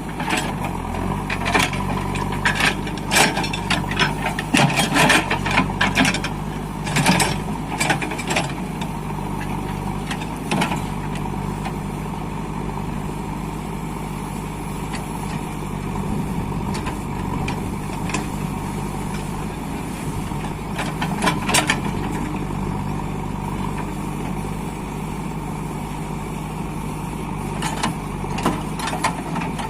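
JCB 3DX backhoe loader's diesel engine running steadily under work, with repeated sharp clanks and knocks from the working machine, in clusters through the first ten seconds or so, again about two-thirds of the way in, and near the end.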